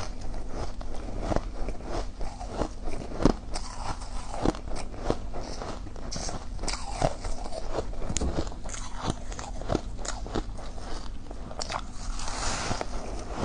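Crushed flavoured ice being bitten and chewed, with many irregular crisp crunches.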